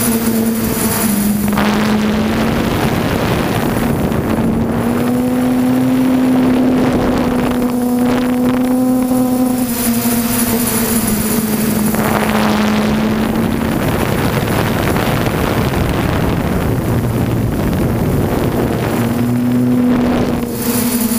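DJI F550 hexacopter's six electric motors and propellers humming steadily in flight, heard from a camera mounted on the drone, the pitch drifting slightly as the motor speeds change. A rushing noise swells over the hum a couple of times.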